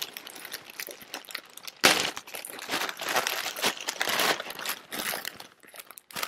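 Plastic courier mailer bag crinkling and rustling in uneven bursts as it is handled and opened by hand, the loudest burst about two seconds in; near the end the plastic-wrapped package inside is pulled out.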